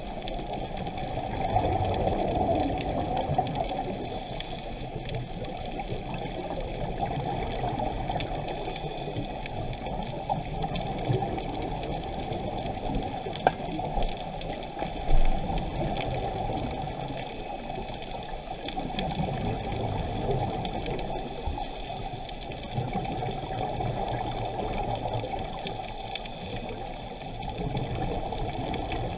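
Scuba diver's exhaled bubbles gurgling from the regulator over a steady wash of water, muffled through an underwater camera housing and swelling in waves every several seconds. A sharp tap sounds once, a little before the middle.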